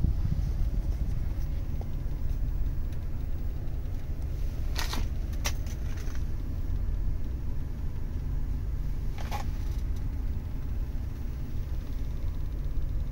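Pickup truck engine idling, a steady low rumble heard inside the cab, with brief rustling clicks about five seconds in and again about nine seconds in.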